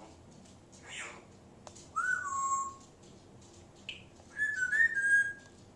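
African grey parrot whistling. About two seconds in comes a whistle that rises, then drops to a lower held note. Near the end comes a quick string of short, higher whistled notes, the loudest part. A fainter raspy sound comes about a second in.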